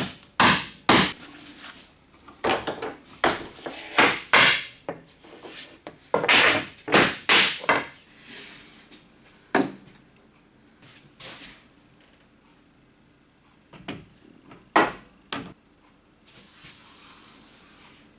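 Wood and tools being handled on a workbench: a quick run of knocks and clatters, a few more knocks later, then a short steady hiss near the end.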